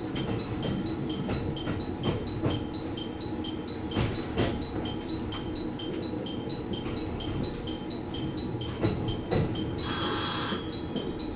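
A bell-like electronic signal dinging rapidly and evenly, about three times a second, over the low rumble of the train. A brief, brighter tone sounds near the end.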